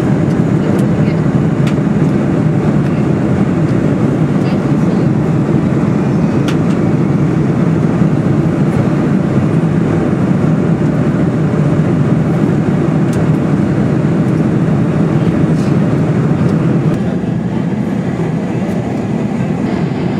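Steady low rumble of a Boeing 747-400's engines and airflow, heard from inside the passenger cabin in flight. It drops a little in level near the end.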